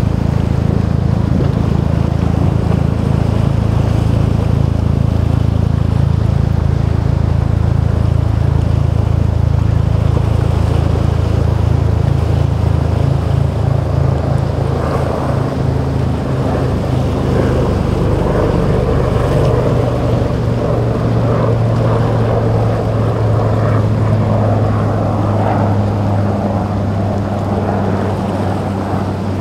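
Twin Suzuki 250 outboard motors running steadily under way, a low engine drone, with the hull splashing through choppy waves. About halfway through the engine note dips slightly and the splash and spray grow louder.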